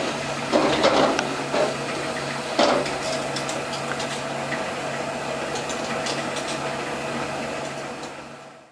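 Automatic can-labelling machine running: its conveyor and rotary collecting table give a steady mechanical hum, with aluminium cans knocking against each other and the guides a few times in the first three seconds. The sound fades out near the end.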